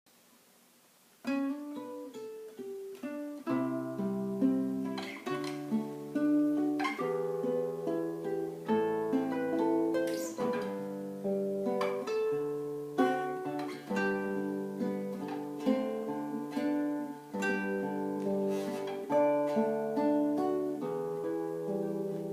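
Acoustic guitar played fingerstyle: plucked melody notes over a steady bass line, starting about a second in.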